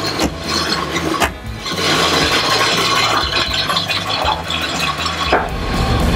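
1942 Ford COE's flathead V8 running with a rattly, rasping clatter, freshly started after sitting unrun for years.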